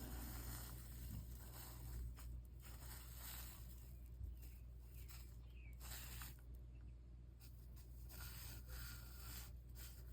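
Faint, irregular scratching and rubbing, each stroke about half a second long, over a steady low hum.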